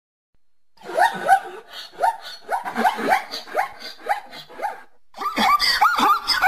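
An animal giving a rapid series of short barking calls, about two a second, each dipping in pitch. After a brief pause near the end, a second run of higher, arched barks starts.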